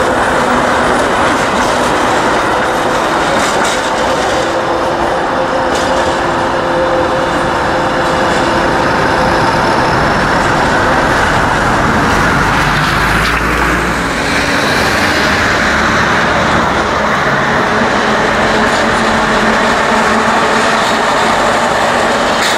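City trams running past on street track: steady rolling noise of wheels on rails with a steady whine through it, and a deeper rumble about halfway through.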